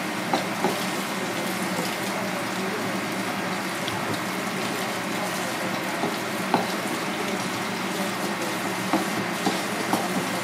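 Steady rush of running water, like a tap, with a few short sharp taps of a steel knife against a plastic cutting board as a hagfish is filleted.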